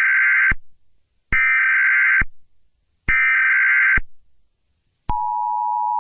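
Emergency Alert System SAME header: three short bursts of warbling data tones, each just under a second. About five seconds in, the steady two-tone EAS attention signal begins.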